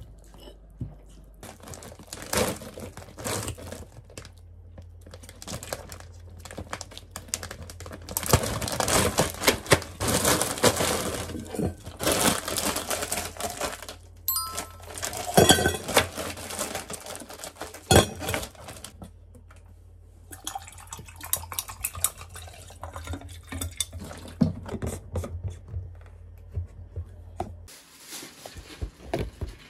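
Irregular household handling noises: rustling and crinkling with sharp clicks and knocks, over a steady low hum that stops near the end.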